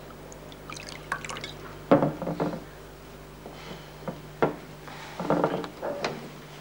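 A drink being poured: liquid dripping and trickling into a glass, with several short clinks and knocks of glass and bottle. The sharpest knock comes about two seconds in, and a cluster of them comes near the end.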